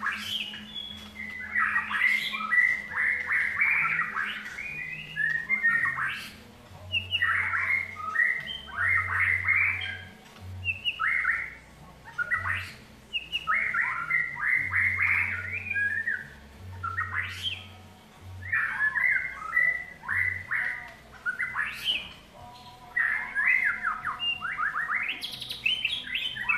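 White-rumped shama singing: a run of phrases of rapid, varied whistled and chirping notes, each a couple of seconds long, with short pauses between them.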